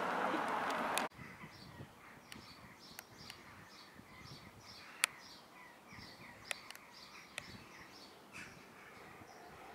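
A rushing noise that cuts off suddenly about a second in, then birds calling: a long run of short, repeated calls, about three a second, with a few sharp clicks among them, one louder click about halfway through.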